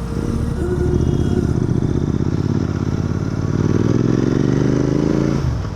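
Royal Enfield Continental GT 650's parallel-twin engine running on the move, the revs climbing steadily for a couple of seconds, then falling off sharply near the end.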